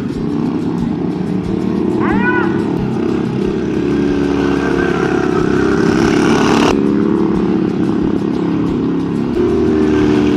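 Several small racing-lawnmower engines running hard together, their overlapping engine notes steady and loud. A brief rising-then-falling tone comes about two seconds in.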